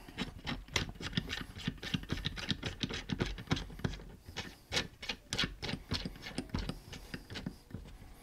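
Small bolts being turned in by hand into the metal mounting bracket of an All American 5005 Gen 2 blade-sharpening jig: a quick, irregular run of light metallic clicks and ticks.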